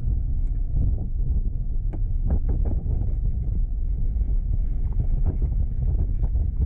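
Vehicle on the move: a steady low rumble of engine and road noise with wind buffeting the microphone, and scattered light knocks and rattles.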